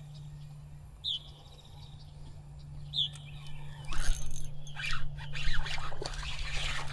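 Two short, high bird chirps about two seconds apart, over a steady low hum. From about four seconds in, irregular scraping and rustling.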